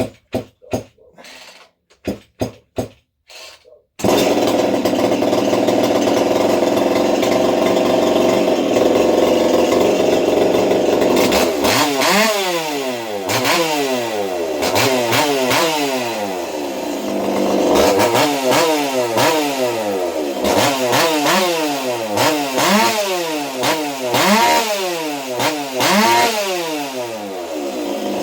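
A ported, muffler-modded Partner 5000 Plus 50cc two-stroke chainsaw is pulled over in a few quick bursts, fires about four seconds in and runs loudly. From about twelve seconds on it is blipped again and again, each rev rising and falling back; the freshly rebuilt carburettor is not yet tuned.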